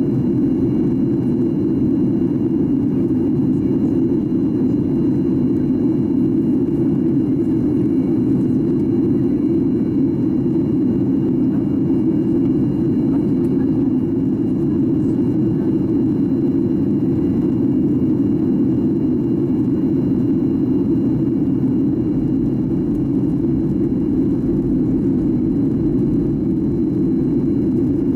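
Steady in-flight cabin noise of a Boeing 737-800 heard from a window seat: an even, unbroken rumble of engine and airflow, strongest in the low-mid range, with a faint high steady tone.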